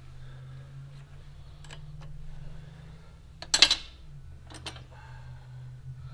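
Metal hand tools clinking and clattering, with a loud clatter about halfway through and a couple of sharp clicks after it, over a steady low hum.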